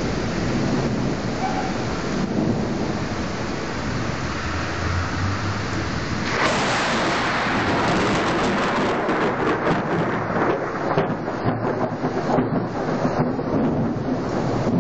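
Thunderstorm with steady rain. Thunder comes in suddenly about six and a half seconds in and rolls on in a string of short, uneven cracks.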